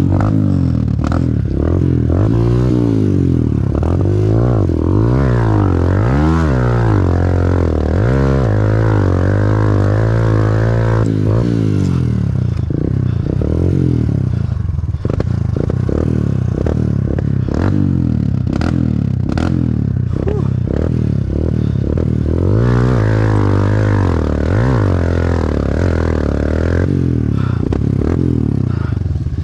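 Pit bike engine revving up and down again and again while churning through a mud hole, with scattered clattering knocks.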